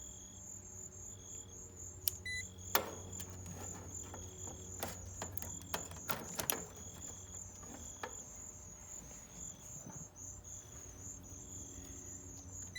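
Crickets chirping steadily in a fast, even pulse, with a series of sharp clicks and taps partway through from hands and tools working at the outdoor unit, over a low steady hum.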